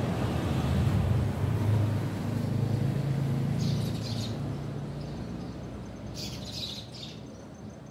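A vehicle's engine rumbles past, loudest in the first few seconds and then fading away, while small birds chirp briefly twice, about halfway through and again near the end.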